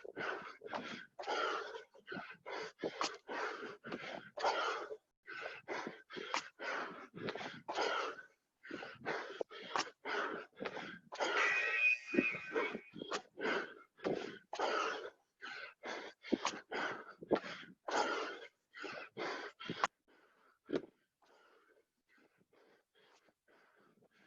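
A man panting hard from burpees: fast, loud breaths in and out, about two a second, with a voiced groan midway. Near the end the heavy breathing stops and only faint breaths remain.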